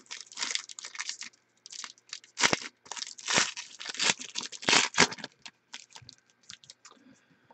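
Shiny foil trading-card pack being torn open by hand, its wrapper crackling and crinkling in a quick run of tearing noises that are loudest in the middle. Near the end there are only a few faint rustles and clicks as the cards come out.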